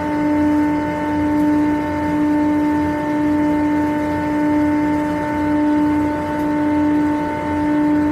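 Zamil air-cooled chiller running: a loud, steady machinery hum with a strong pitched drone from its compressors and condenser fans, gently swelling and fading about once a second.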